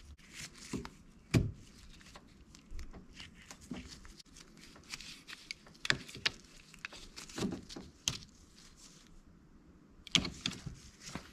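Small plastic clicks, taps and rattles as a car's interior door handle and its release cable are handled and fitted into a plastic clip inside the door. The clicks come irregularly, with a short lull near the end.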